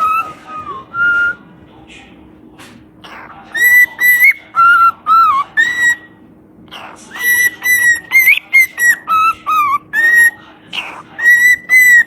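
Parrot whistling a tune in short, clear notes that jump between a higher and a lower pitch, in phrases broken by pauses of a second or two.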